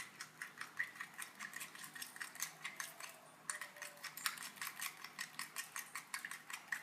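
A straw stirring a mixture in a bowl or cup, tapping and scraping against the container's sides in rapid light clicks, several a second, with a brief lull about halfway.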